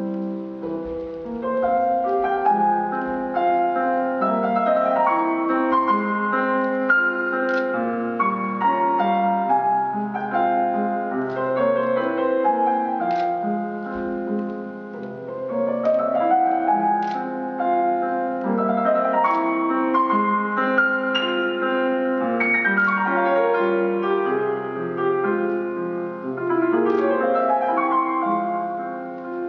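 Piano music: a slow passage of held chords under a melody, with a rising run of notes about halfway through.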